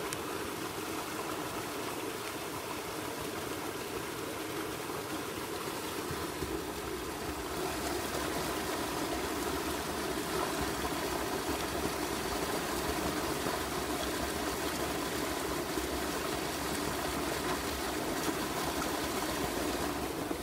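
Swollen river rushing steadily, high with rainwater, getting a little louder and deeper from about eight seconds in.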